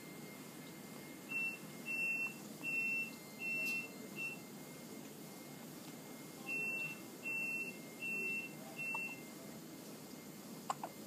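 Electronic beeper sounding a high steady tone in two runs: five beeps, then after a pause four more. A child's short hiccup comes near the end.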